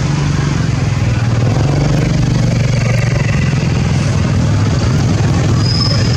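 A motor engine running steadily with a low hum, and a brief high chirp near the end.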